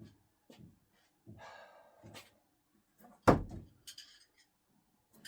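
A thrown screwdriver hits the throwing target with one loud thunk about three seconds in, followed by a brief faint rattle.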